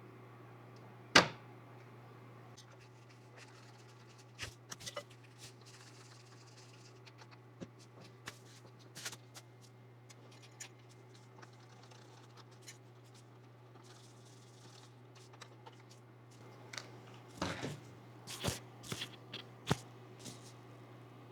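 Sharp clicks, taps and light scrapes of PC hardware being handled and fitted, over a steady low hum. There is one loud click about a second in and a quick cluster of clicks near the end.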